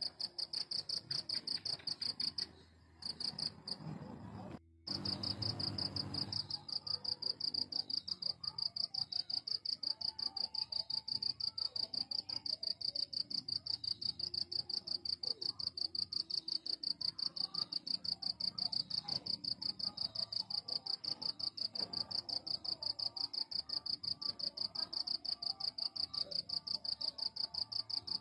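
A cricket chirping steadily in a high, rapid, even pulsing trill. It breaks off briefly twice in the first five seconds, then runs on unbroken.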